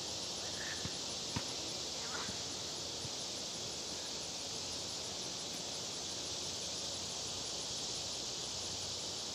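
Steady, high-pitched drone of a summer insect chorus from the grass and trees. A few faint thuds of a soccer ball being kicked come in the first couple of seconds.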